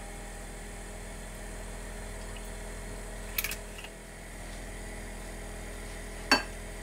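Steady hum and hiss of a gas hob burner lit at medium heat, with a short clatter about three and a half seconds in and a single sharp click near the end, the loudest sound.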